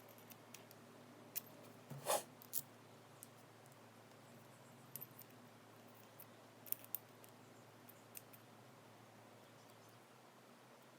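Scattered faint metallic clicks and a short scrape of small tools and lock parts being handled while a Kaba 8 lock cylinder is taken apart, the loudest scrape about two seconds in, over a faint steady hum.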